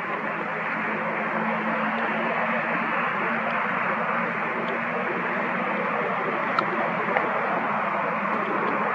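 Steady, even hiss of background noise, with a faint low hum under it for most of the time and no animal calls standing out.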